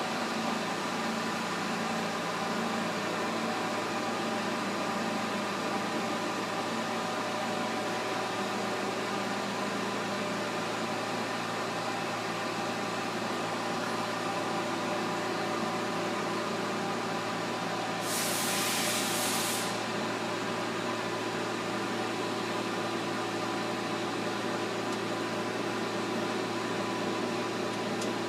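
Pinacho S-90/180 lathe running with its spindle turning: a steady mechanical hum with a whine of several tones from the headstock gearing. About two-thirds of the way through comes a brief hiss lasting a second and a half.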